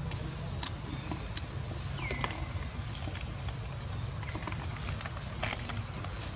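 A steady high-pitched insect drone over a low rumble, with a few light clicks and leaf rustles as a macaque pulls and chews leaves; a single short falling chirp comes about two seconds in.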